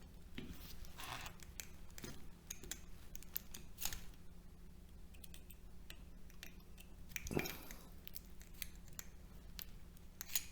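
A screwdriver blade prying and scraping against the steel laminations of a transformer core, with light scattered clicks of metal on metal and a few short scrapes.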